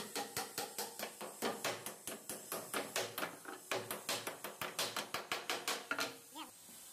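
Quick repeated blows of a wooden-handled hammer striking inside a laminated plywood cabinet, several a second; they stop about six seconds in.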